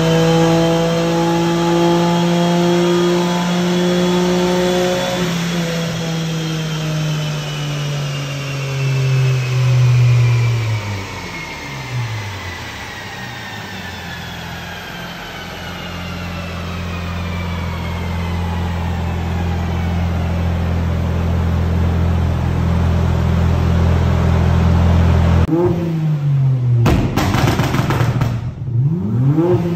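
Nissan Skyline GT-R R32's RB26 twin-turbo straight-six running on a chassis dyno: held at steady revs, then the revs fall away over several seconds with a high whine slowly dropping in pitch, before it settles to a steady lower note. Near the end it is blipped a few times with the rally-style anti-lag active, short quick revs with sharp cracks.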